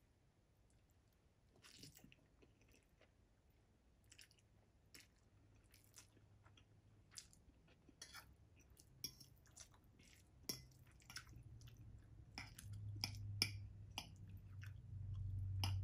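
Metal fork stirring sauce-coated instant ramen noodles on a ceramic plate: faint, scattered clicks of the fork against the plate and wet noodle sounds, coming more often toward the end. A low hum joins in the last few seconds.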